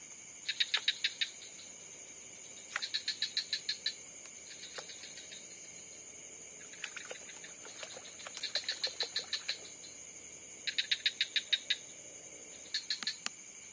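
Steady high-pitched night insect chorus, with five bouts of rapid chirping, each about a second of evenly spaced pulses at around eight a second, from an unidentified night animal: the strange sound heard while fishing at night.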